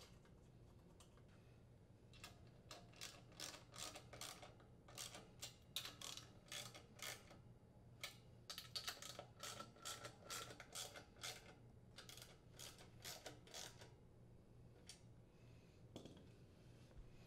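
Faint, quick runs of clicks from a ratchet and 5/16 inch socket tightening the nuts that hold the fan motor to the grill cover, starting about two seconds in and stopping a few seconds before the end.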